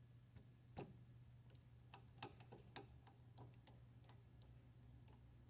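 Faint, scattered light metallic clicks as a small tap in a T-handle tap wrench is handled and fitted against a drill chuck, the sharpest two around the middle, over a faint low hum.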